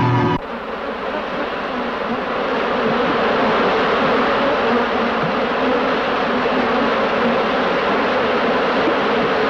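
A steady, dense buzzing noise cuts in abruptly just after the start, replacing sustained musical tones, and carries on unchanged.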